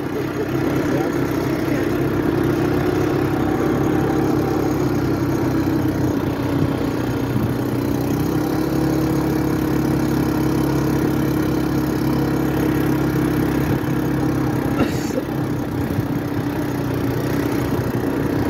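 ATV (quad bike) engine running steadily at cruising speed with an even drone that barely changes pitch.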